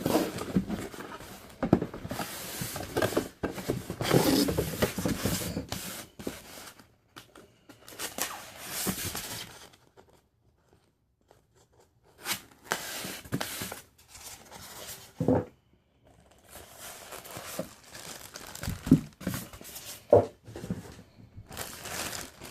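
Collectible statue packaging being opened by hand: irregular tearing, crinkling and scraping, with a short quiet spell about halfway through.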